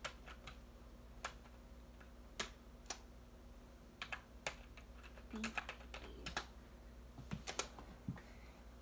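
Fingers tapping out a text message on a phone: light, irregular clicks, singly and in quick little clusters, over a faint steady room hum.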